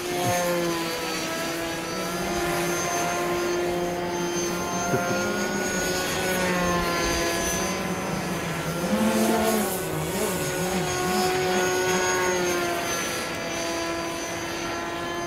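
Electric motor and propeller of a model aircraft, a steady droning whine in flight. Its pitch wavers up and down about two-thirds of the way through as the throttle or distance changes.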